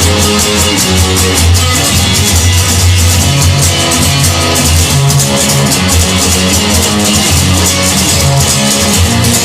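Instrumental stretch of a blues-rock song: guitar and bass over a steady drum beat, with no singing.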